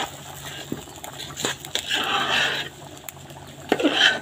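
Rice being stirred with a spatula in a metal pot: scraping and rustling against the pot in two spells, a longer one about a second and a half in and a short one near the end, over a steady low hum.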